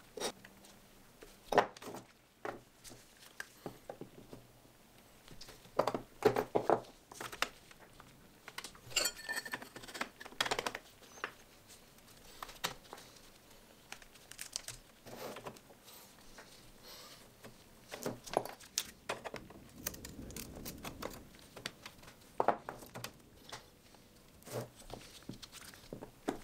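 Irregular taps, clicks and clinks of hand work at a stained glass bench: pieces of glass and tools being picked up, set down and knocked together.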